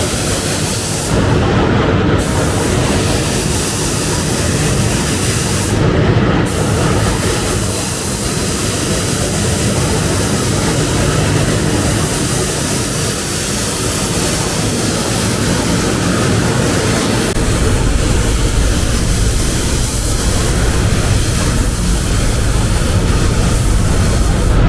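Air spray gun hissing as paint is sprayed in a paint booth, the hiss stopping briefly about one and a half seconds in and again around six seconds as the trigger is released, over the booth's steady low drone.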